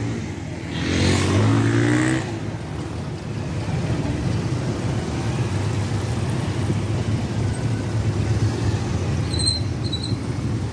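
A stream of motorcycles and scooters riding past, their small engines running in a steady hum, with one bike passing louder and rising in pitch about a second in. A few short high chirps sound near the end.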